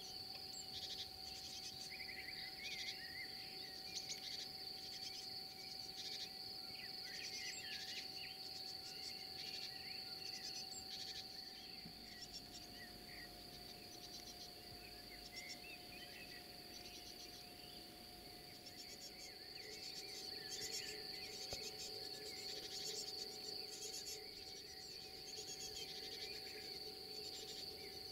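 A steady high-pitched insect trill, with birds chirping and calling over it throughout.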